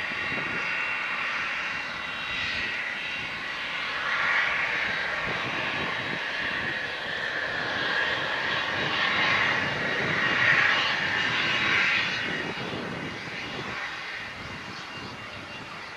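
Cessna Citation XLS business jet's twin Pratt & Whitney Canada PW545B turbofans at taxi power: a steady rush with a faint high whine, growing louder as the jet comes close, loudest about ten to twelve seconds in, then easing off.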